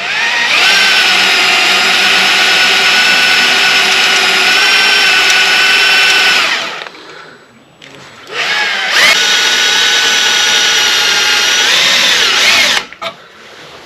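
Electric drill driving a cobalt twist bit through soft metal that drills easily, with a steady whine. It runs twice: about six seconds, a pause, then about four seconds.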